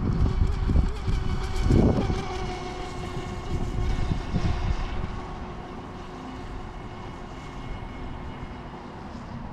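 Brushless electric motor of an RC speed boat whining steadily as it runs on the water. Gusts of wind buffet the microphone during the first half.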